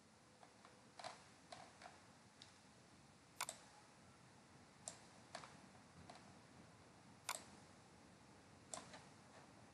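Faint, scattered clicks of a computer mouse, about a dozen single clicks at uneven intervals with near silence between them.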